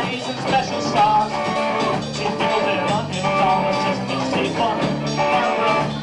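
Rock band playing, with guitar carrying a gliding melody over a steady bass and drum backing.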